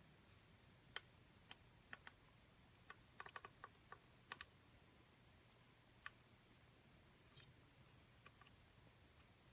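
Push buttons on an ADJ Element QAIP LED uplight's control panel clicking under a finger as its menu is stepped through. About a dozen short, sharp clicks come in a quick run over the first four and a half seconds, then a few fainter ones scattered later.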